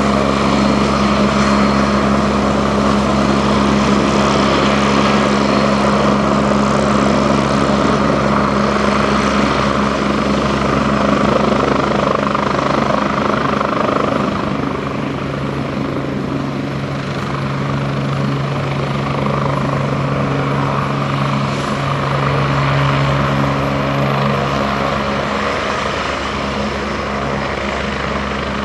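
Agusta A109E Power twin-turbine helicopter running on the ground and taxiing on its wheels, main rotor turning: a steady turbine whine and rotor hum over a low drone. It gets a little quieter about halfway through.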